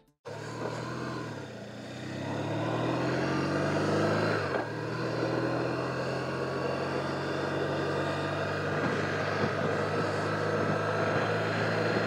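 BMW R1200RT boxer-twin motorcycle engine running under way, its note climbing over the first few seconds, dipping briefly about four and a half seconds in, then holding steady.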